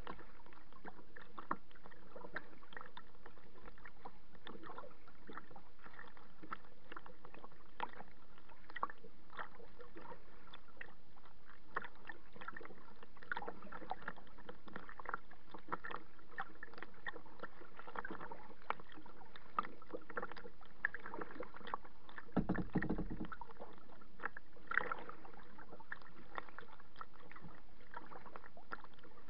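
Small choppy waves lapping and slapping against a kayak's hull close to the microphone, with many short irregular splashes. A louder low thump comes about three quarters of the way through.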